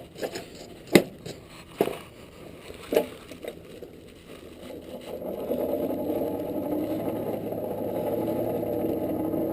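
Four sharp hammer blows on hot steel at the anvil, about a second apart, forge-welding a belt buckle's center bar. About five seconds in, the steady roar of the forge takes over as the piece goes back into the heat.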